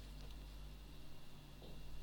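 A few faint light clicks over a steady low hum, like small parts or tools being handled on a workbench.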